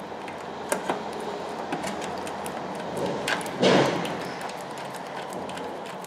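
Scattered light clicks and taps as the starter motor's mounting bolts are threaded loosely by hand into the transmission, with a louder brief scrape about three and a half seconds in, over a steady background hum.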